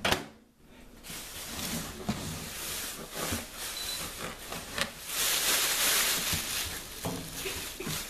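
Clear plastic packaging bag crinkling and rustling as it is pulled off a microwave oven, loudest past the middle, with a few light knocks.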